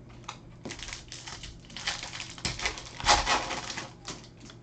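Crinkling and rustling of trading cards and their foil pack wrappers being handled, in irregular bursts, loudest about three seconds in.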